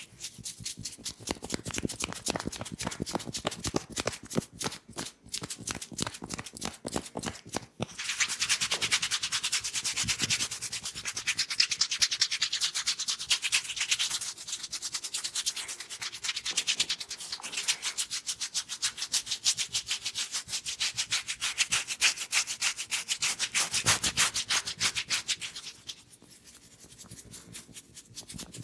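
Hands rubbing quickly and vigorously through hair and over the scalp during a head massage, a fast dry scratchy rustle of many short strokes. It grows fuller and louder after the first several seconds and eases off near the end.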